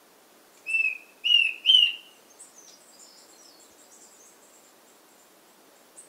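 Cundinamarca Antpitta calling: three short whistled notes about half a second apart, each a little louder than the last. Faint high chirps follow.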